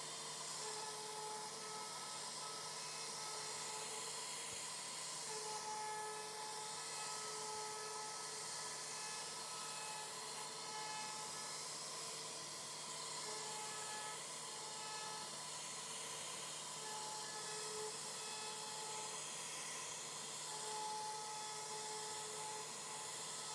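CNC router carving wood: a steady high hiss of the spindle and cutter, with a whining tone that starts and stops every second or two as the machine moves.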